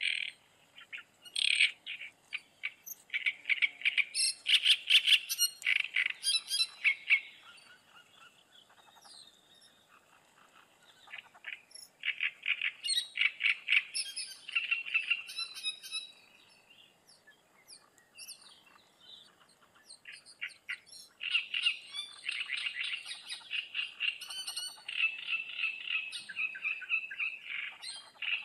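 Rapid, chattering animal calls in three long bouts of several seconds each, with quiet gaps between.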